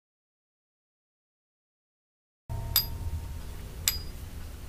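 Dead silence for about two and a half seconds, then a low steady hum with two light metallic clicks, about a second apart, as the steel drill chuck is handled.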